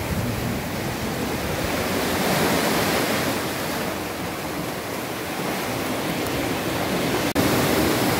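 Sea surf washing in over rocks and sand, a steady rush that swells and eases, with a momentary dropout near the end.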